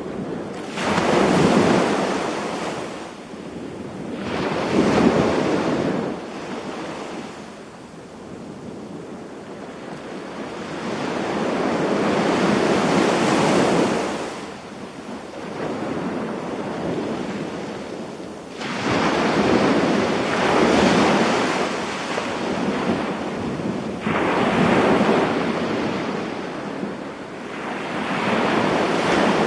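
Small sea waves breaking and washing up the beach, each wash swelling and fading over a few seconds, about six in all.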